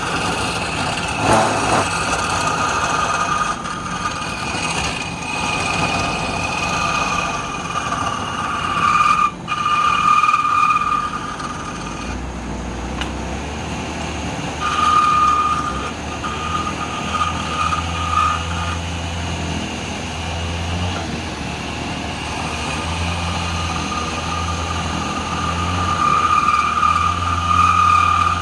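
Wood lathe running, with a steady whine that fades and returns several times and a low hum that comes in partway through.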